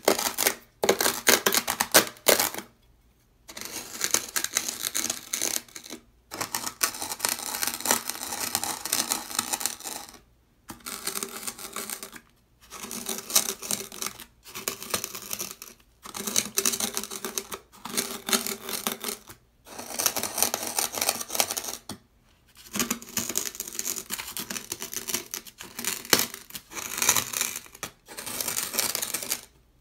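Dry, coarse beach sand crunching on sandpaper: at first it is worked with a ceramic knife blade, then it is pressed and ground under a black cylindrical tool. The crunching comes in strokes of a few seconds each, with short pauses between them.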